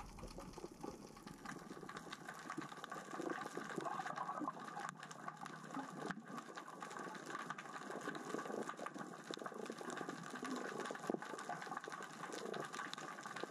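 Steady underwater crackle of many fine clicks: small rocks rolling across the sea floor as the current and tide move them.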